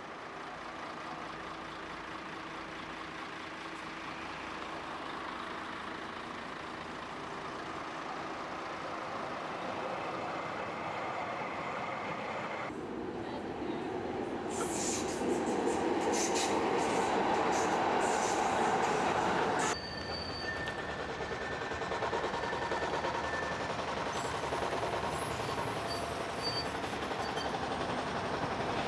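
Budapest trams running on street track: steel wheels rolling and clattering on the rails, with sharp high wheel squeal and screech, loudest in the middle and again near the end. The sound changes abruptly twice between separate takes.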